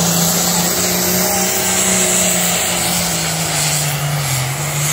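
Diesel pulling tractor running flat out under heavy load as it drags a weight-transfer sled down the pulling track. The engine note holds steady and sags slightly in pitch near the end.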